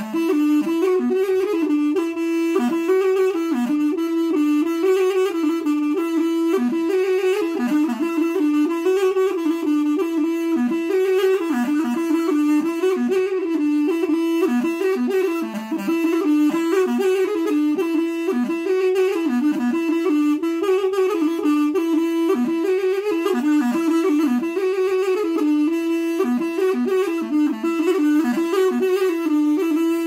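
A wooden reed pipe played solo: a continuous, reedy folk melody moving in small ornamented steps within a narrow middle range, broken only by short breaths near the start and about halfway through.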